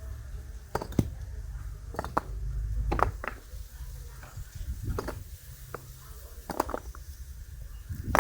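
Hard clicks and knocks at irregular intervals, about a dozen, over a steady low rumble, with the loudest knock near the end.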